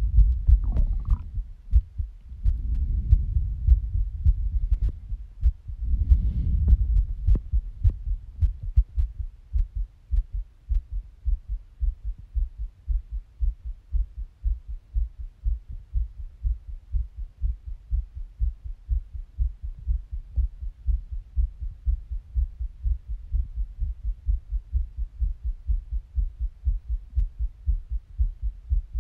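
A person's heartbeat, heard close up during a breath hold, as steady rapid low thumps, about three a second. For the first several seconds, louder muffled low rumbles sit over the thumps.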